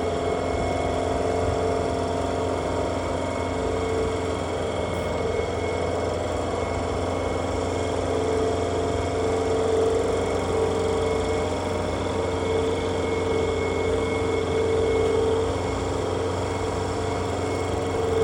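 Steady machine hum: a low drone with a higher tone that keeps fading in and out, over an even whir.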